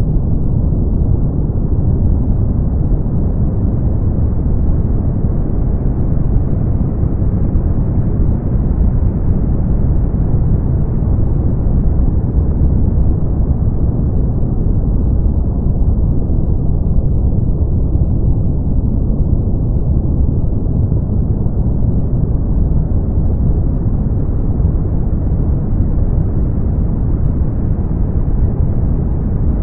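Brown noise: a steady, deep rushing hiss with most of its weight in the low end and no tones or breaks. Its top end slowly brightens and dulls a little over many seconds.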